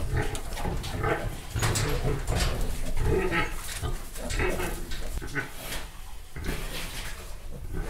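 Pigs, a sow and her newborn piglets, grunting and squealing in short irregular calls as they move about in the bedding.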